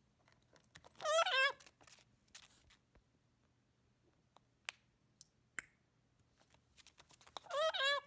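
A parrot giving two short, quavering calls, one about a second in and one near the end, with small clicks and scratches in between.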